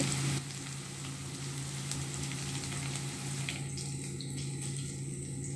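Sliced onions and green chillies frying in oil in a wok, a steady low sizzle with a faint hum beneath it.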